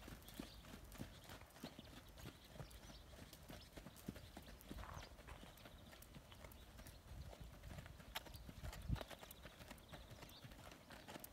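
Faint hoofbeats of an Icelandic horse moving at a gait on a sand arena, a steady run of soft thuds, with one louder thump about nine seconds in.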